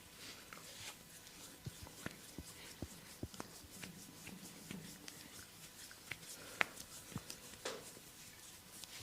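Hands massaging skin: soft rubbing and rustling, with scattered light taps and clicks and one sharper click about six and a half seconds in.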